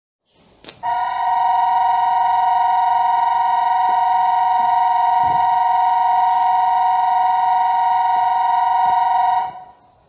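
JR Central 383 series train's horn sounded in one long, steady two-note blast of about eight and a half seconds, ending abruptly.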